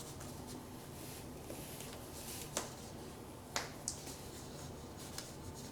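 Network cable crimping tool clicking as its handles are squeezed to crimp an RJ45 connector onto an Ethernet cable: a few sharp clicks in the middle, with quiet between.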